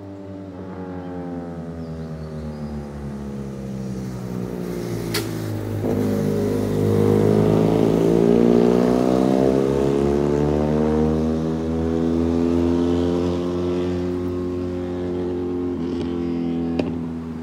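Two sport motorcycles riding past at steady throttle: the engine note grows louder as they approach, is loudest as they go by about halfway through, then drops in pitch and fades as they ride away. A sharp click about five seconds in.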